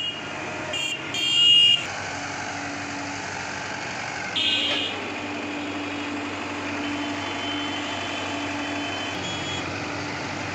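Tata Hitachi EX70 excavator's diesel engine running steadily with a level hum as the machine tracks down off a flatbed truck onto the road. A horn sounds loudly twice: about a second in, and again briefly about four and a half seconds in.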